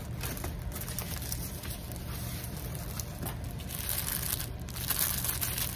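Crinkling and rustling of clear plastic bags and paper as a diamond painting kit is unpacked: the paper-backed canvas is unrolled and small bags of beads are handled. The rustling grows louder in the second half.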